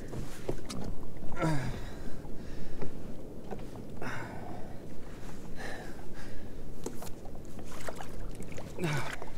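Water sloshing and splashing against the side of a jet ski as a small reef shark is handled in the water, over a steady rumble of wind on the microphone. A couple of short grunts come about a second and a half in and again near the end.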